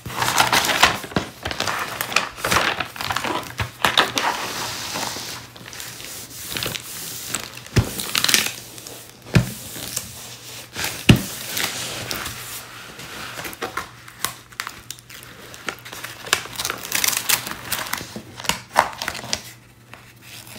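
Clear plastic protective film on a diamond painting canvas crinkling and rustling as hands press and smooth it down onto the sticky canvas, with a few sharp clicks about halfway through.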